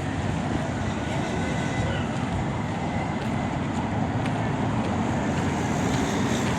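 Steady city street traffic: a continuous hum of cars and other vehicles running along a busy avenue.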